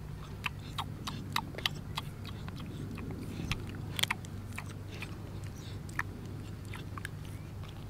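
A puppy chewing and mouthing, its mouth making irregular wet clicks and smacks, over a steady low hum.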